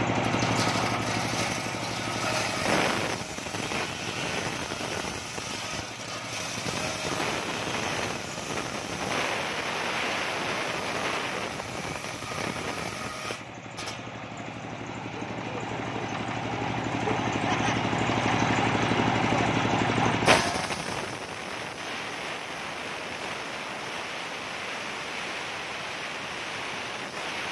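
Homemade engine-driven circular saw bench running, its large toothed blade ripping coconut-wood planks lengthwise. The cutting noise swells and eases as the boards are fed. About two-thirds through comes a sharp click, after which the engine's low hum drops away and a steadier hiss remains.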